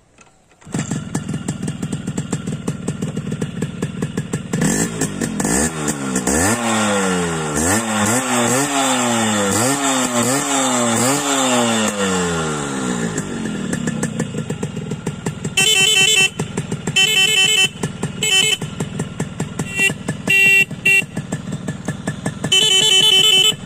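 Yamaha RX100's two-stroke single-cylinder engine kick-started, catching within a second, then revved in a run of rising and falling blips before settling to idle. Over the idle the motorcycle's electric horn sounds in a series of short and longer beeps.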